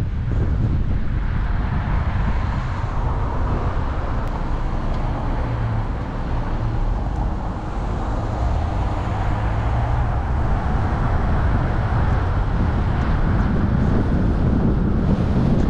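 Steady road noise of a car being driven: a low rumble of tyres and wind with an overlying hiss that dips before the middle and swells again.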